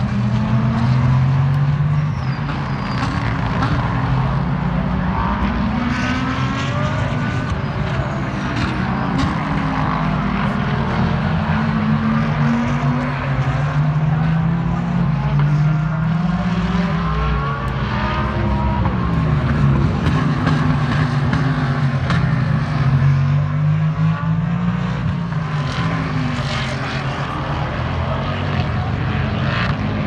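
Several IMSA sports-car race engines lapping the circuit without a break. Their engine notes rise and fall again and again, overlapping as the cars accelerate and slow.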